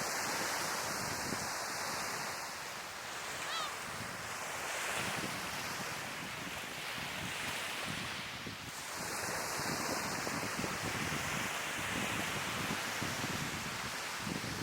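Sea waves breaking and washing on the shore. The surf swells and eases every few seconds, with wind buffeting the microphone.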